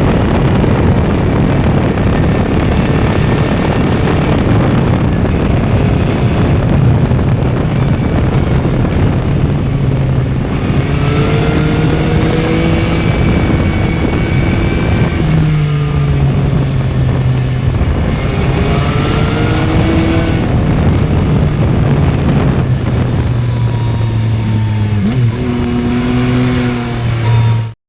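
Yamaha XSR 900's three-cylinder engine under way, its note rising and falling again and again as it is throttled up through the revs and shifted, settling into steady running in between. The sound cuts off abruptly near the end.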